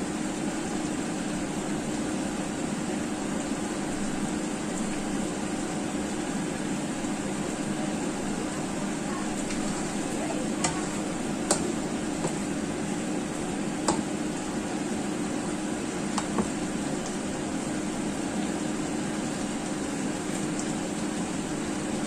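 Chicken wings and potatoes sizzling in a frying pan over a steady hum, with a spatula knocking and scraping against the pan a few times about halfway through.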